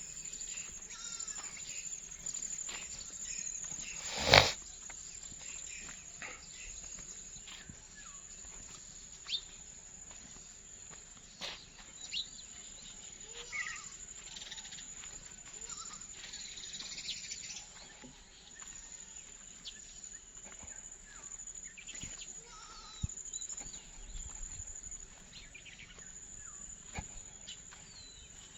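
Countryside ambience: scattered short animal calls and chirps over a steady high-pitched drone, with one sharp knock about four seconds in.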